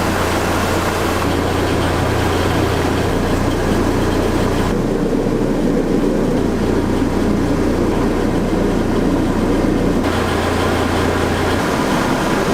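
Steady, loud commercial-kitchen roar, of the kind made by high-flame gas wok burners and extraction fans, with a constant low hum; its character changes abruptly about five and ten seconds in.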